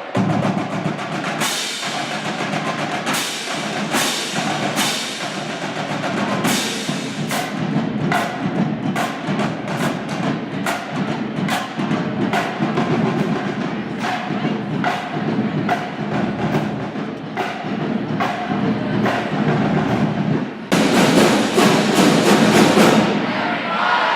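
Percussion-led music with sharp, clicking strokes on a steady beat. It turns louder and fuller near the end.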